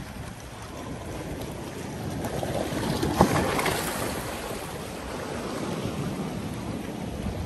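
Sea waves washing over a rocky shore, with wind rumbling on the microphone. The wash swells louder about two seconds in and eases off again, with a sudden thump about three seconds in.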